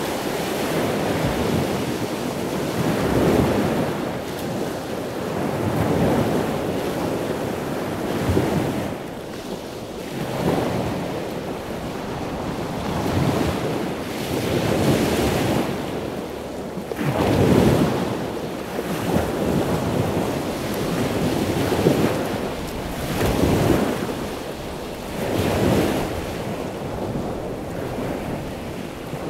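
Rushing noise like surf or wind, swelling and fading every two seconds or so.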